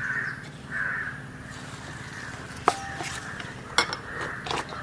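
A crow cawing twice in the first second. A few sharp clinks of a utensil against dishes follow, about two to four seconds in.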